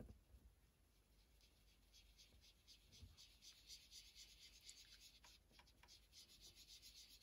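Faint, quick scratchy rubbing of a foam sponge dauber brushed over card stock, starting about two seconds in, as ink is worked along a masking strip to shade a plank line.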